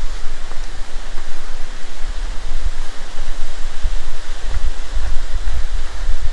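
Steady rush of falling water from a waterfall or rocky stream, with wind buffeting the microphone in uneven low rumbles.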